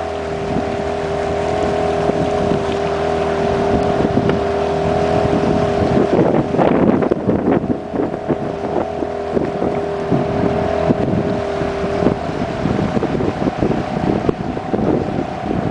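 A small motorboat's engine running steadily under way, with wind buffeting the microphone; the engine's tone changes about twelve seconds in.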